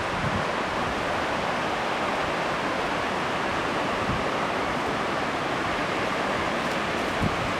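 Steady rush of falling water from the Crabtree Falls cascades, an even noise that holds at one level without change.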